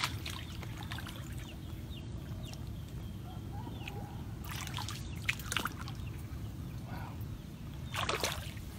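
Floodwater sloshing and trickling, with louder splashes about halfway through and again near the end.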